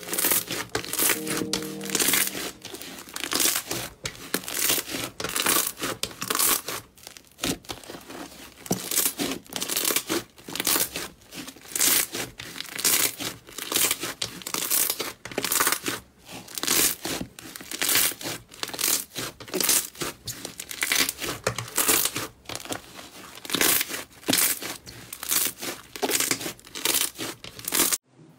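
Thick orange-brown slime being kneaded, stretched and folded by hand, giving dense, irregular crackling and popping as it pulls and tears. A few soft musical tones sound in the first two seconds.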